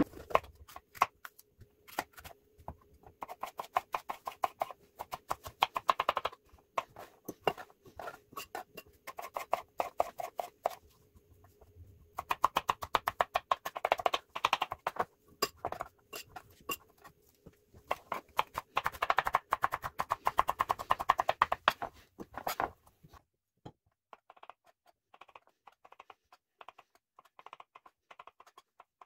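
Knife chopping on a plastic cutting board in quick runs of sharp taps as a red bell pepper is diced, the runs coming in spells with short pauses; in the last few seconds the taps turn fainter and sparser as mushrooms are sliced.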